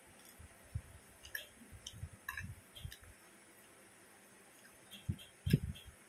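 Quiet eating sounds from someone eating instant noodles: chewing and wet mouth sounds, with a few light clicks and clinks of a metal fork against the plate. The loudest mouth sounds come about five seconds in.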